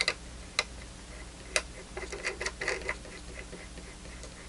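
Small clicks and light metallic ticking as a whip antenna's SMA connector is screwed onto the port of a handheld vector network analyzer. A few separate clicks come in the first second and a half, then a quick run of ticks and rasps about two to three seconds in.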